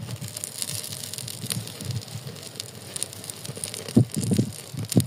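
Plastic bags crinkling and dry sticks rustling as they are packed into a mud stove as kindling, in irregular crackly ticks, with a few low knocks near the end.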